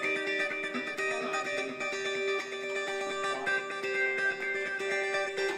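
Guitar playing, a steady run of plucked, ringing notes.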